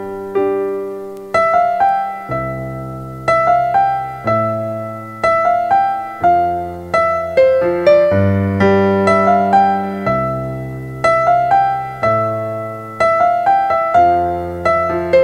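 Slow background piano music, with notes and chords struck one after another and left to fade.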